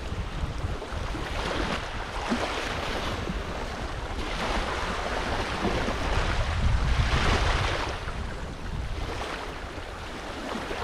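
Wind buffeting the microphone, with small waves washing against the reservoir shore. The rushing noise swells and fades every couple of seconds and is loudest about seven seconds in.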